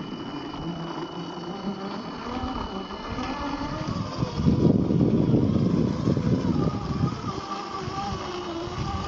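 Radio-controlled scale 4x4 crawler with a 50T electric motor whining as it drives over loose quarry rock. The sound gets louder and rougher for a couple of seconds around the middle.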